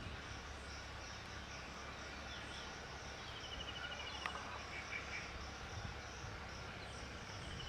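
Steady high insect chirping, pulsing several times a second. About three seconds in comes a short, rapid rattling bird call that falls slightly, and a second later a single sharp tap.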